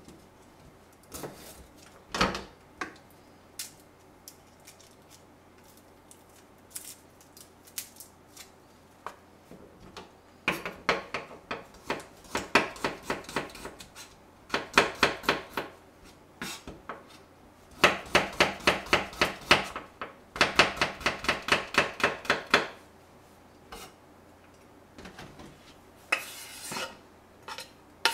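Kitchen knife chopping garlic on a wooden cutting board: a few scattered taps at first, then several runs of fast, even chopping strokes, about six a second, as the clove is minced. A short scrape comes near the end.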